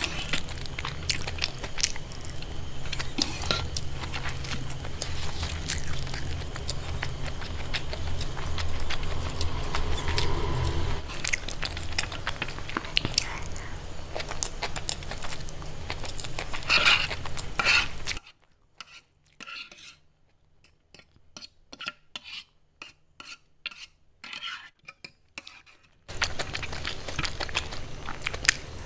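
Metal utensils clinking and scraping against dishes and pans in a run of sharp clicks over a steady low hum. About two-thirds of the way in, the sound drops to a quiet stretch with only scattered clicks, then the busy clatter returns near the end.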